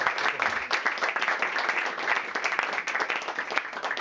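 Small audience applauding, many hands clapping at once. The clapping thins out and dies away just as it ends.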